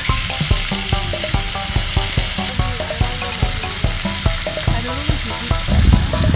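Wagyu beef steaks with garlic sizzling as they fry in a pan, with a steady hiss throughout.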